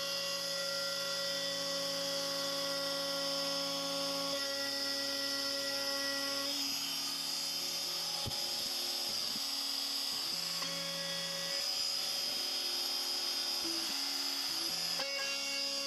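DeWalt router on a Shapeoko CNC machine running with a steady high whine as it routes a juice groove into an end-grain maple cutting board. Lower tones under the whine shift to new pitches every few seconds as the cut moves along.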